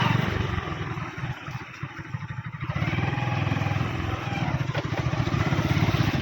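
Motorcycle engine running while riding over a rough dirt track; it eases off about a second in, then picks up again at about three seconds.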